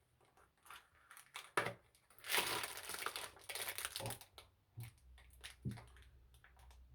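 Handling noise: a few scattered clicks and knocks from a padlock being turned over in the hands, with a rustle like crinkling packaging about two to four seconds in.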